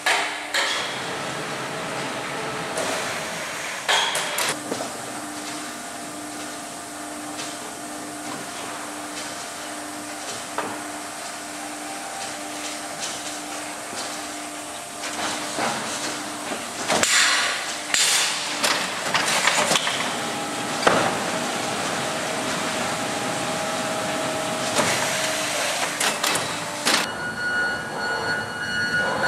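Crate stacking and destacking line running: a steady machine hum with a held tone through the first half, and bouts of clattering knocks from crates and conveyor parts, the loudest in the second half.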